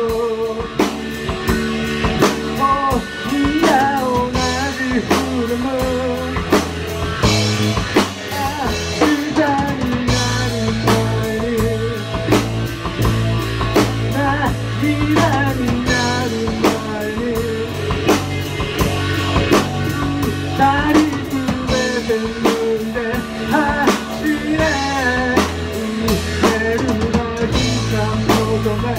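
A rock band playing live: a drum kit, an electric guitar and a bass guitar, with a singer's lead vocal over them.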